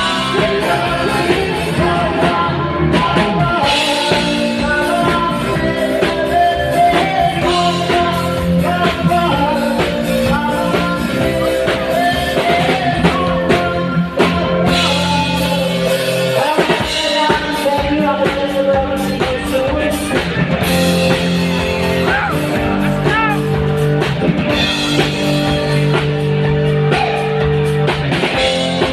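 A rock-style song with a singing voice over guitar and drum kit, playing steadily.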